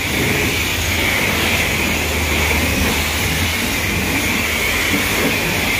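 Self-serve car wash high-pressure wand spraying a jet of water onto a car's bodywork: a steady, loud hiss of spray with a low hum underneath.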